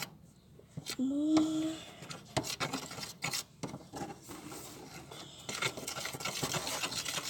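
Small spoon stirring a glue-based slime mixture in a tiny plastic toy plate: quick scraping and light tapping, busier near the end.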